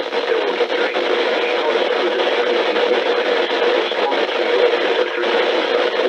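NOAA weather radio receivers playing a National Weather Service alert broadcast buried in steady static hiss, with no clear words coming through.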